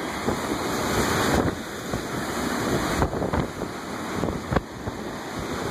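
Heavy storm surf from a nor'easter breaking over a rocky shore: a continuous rushing wash of crashing waves and spray that swells about a second in. Wind noise rumbles on the microphone underneath.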